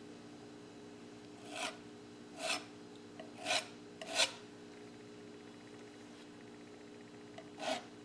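Small palette knife scraping oil paint across a canvas in short rasping strokes: four spread over a few seconds, then one more near the end.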